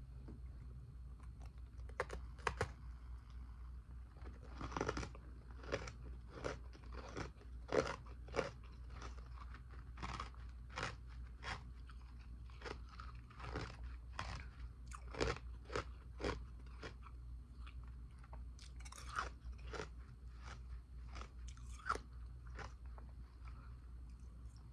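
Powdery ice dumplings being bitten and chewed: sharp, irregular crunches, about one or two a second, starting about two seconds in.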